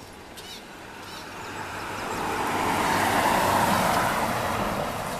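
A road vehicle passing by: its noise swells to a peak about three to four seconds in, then fades.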